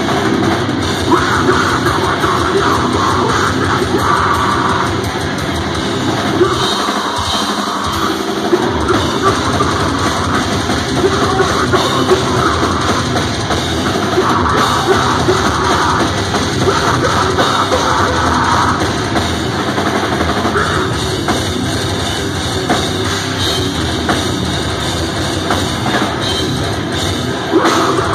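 Deathcore band playing live at full volume: distorted guitars, bass and pounding drums, recorded from the crowd. The low end drops out briefly about seven seconds in, then comes back.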